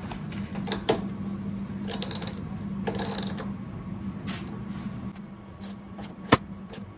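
Ratchet wrench clicking and metal tool clatter as a cage-kit bolt is worked into an expanding nut inside the Jeep's roll bar: scattered clicks and short rattles, with one loud sharp click about six seconds in. A low steady hum runs underneath.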